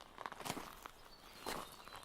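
Footsteps of a person walking on a hiking trail, two steps about a second apart.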